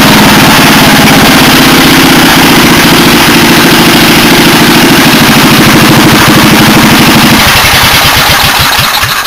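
Honda GV400 single-cylinder vertical-shaft engine running steadily, then shut off: about seven and a half seconds in its firing slows and it coasts to a stop near the end.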